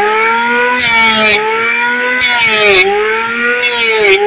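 Electric hand planer running, its motor whining steadily and sagging in pitch about every second and a half as the blades bite into the wood. A hiss of shaving wood rises with each of about three passes along the plank.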